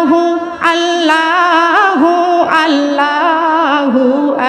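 Bengali Islamic gojol singing: a voice draws out long, wavering melodic notes on a held syllable without clear words, over a steadier lower held note.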